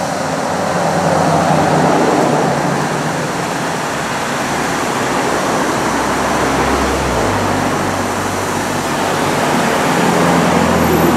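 Street traffic noise from vehicles on the road alongside, with a low engine rumble that swells in the middle as a vehicle passes.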